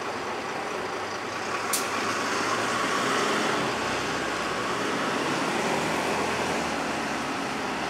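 Bus and road traffic noise at a reopened level crossing, the bus engine running as it pulls away. A single sharp click sounds just under two seconds in.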